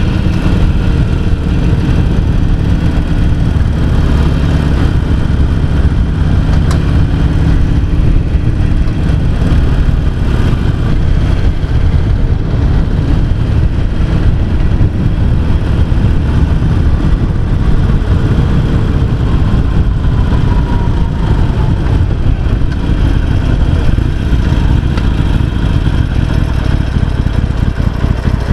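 Harley-Davidson XL883C Sportster's 883 cc air-cooled V-twin running as the bike is ridden, a steady loud engine sound whose pitch shifts with the throttle, falling away once about two-thirds of the way through.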